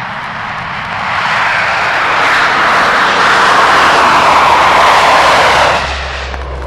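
Military aircraft passing low overhead, heard off a vinyl record with surface crackle: its rushing engine noise swells over a few seconds, sinks in pitch as it goes by, then cuts off abruptly near the end.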